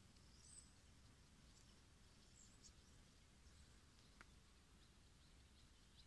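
Near silence: faint outdoor background with a few faint, short, high chirps in the first few seconds and a single faint click about four seconds in.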